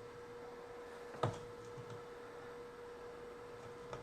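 A faint, steady electrical hum at a single high pitch, with one sharp click about a second in and a softer one near the end.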